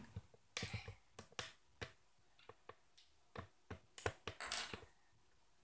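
Small plastic Lego pieces clicking and clattering as a child's hands pick through a pile of loose bricks: a string of faint, irregular clicks, some in quick pairs.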